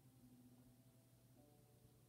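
Faint, slow background music: soft sustained notes that move to a new chord about a second and a half in, over a steady low hum.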